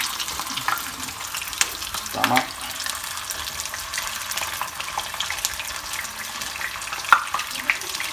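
Flour-dusted pieces of sweet lips fish sizzling in hot oil in a wok, as more pieces are laid in to fry until crispy. A steady hiss is dotted with crackles and occasional sharper pops, the loudest about two seconds in and again a second before the end.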